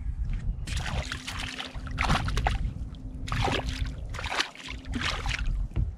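Water splashing and sloshing in irregular bursts as a hooked perch thrashes at the surface beside the boat while being reeled in, over a low rumble and a faint steady hum.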